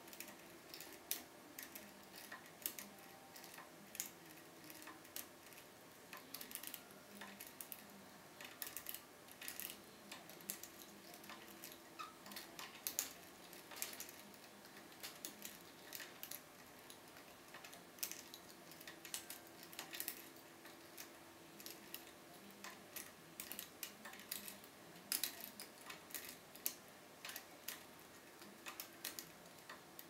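Lock pick raking and probing the pins inside a Keso 2000 cylinder, giving faint, irregular small metallic clicks and scratches.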